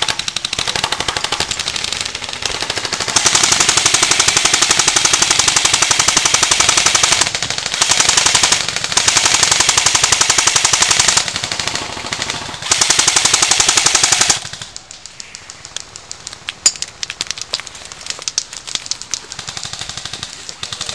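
Airsoft guns firing long full-auto bursts, a fast rattling stream of shots. About two-thirds of the way through the firing stops, leaving quieter scattered shots.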